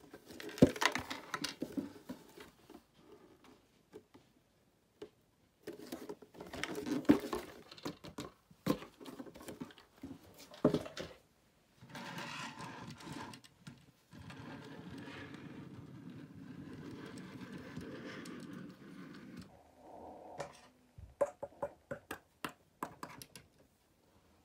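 Cardboard box being handled and opened: irregular crinkling, scraping and knocking. About twelve seconds in, a steady whirring sound runs for about eight seconds, then a quick run of small clicks comes near the end.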